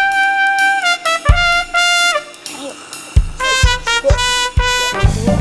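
Background music: a brass tune of held notes, then shorter notes, over low drum hits.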